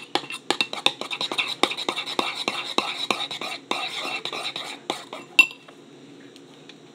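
Spoon stirring a thick glue-based slime mixture in a bowl, scraping and clinking against the side in a fast run of about five strokes a second. It ends with one louder ringing clink after about five seconds.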